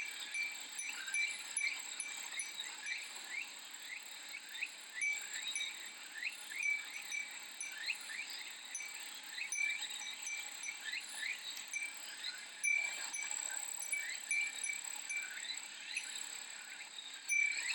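Cicadas droning steadily in a high, pulsing chorus, while a Japanese glass wind chime (fūrin) tinkles with many short, bright rings.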